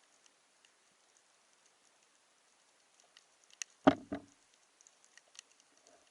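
Faint scattered clicking and crackling, with one loud knock just under four seconds in and a smaller one right after it.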